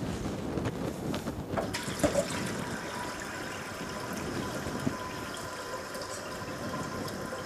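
Kitchen tap running water into a stainless steel pressure cooker at the sink, a steady rush with a faint ringing tone as the pot fills. A few clanks of the pot about two seconds in.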